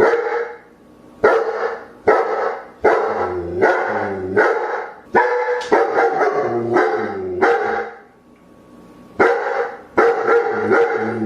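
A dog barking loudly and repeatedly in quick runs, each bark dropping in pitch, with a pause of about a second around eight seconds in.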